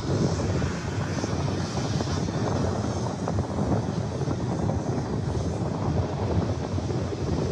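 Wind buffeting the microphone: a rough, steady low rumble with constant small gusts.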